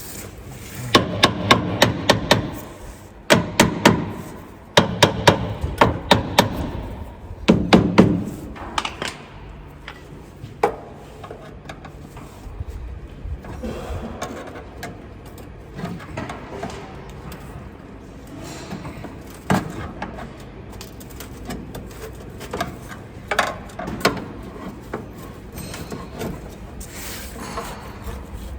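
Rapid metal strikes in four bursts over the first eight seconds, then scattered quieter knocks and clunks, as a truck's diesel particulate filter is hammered and worked loose from its housing.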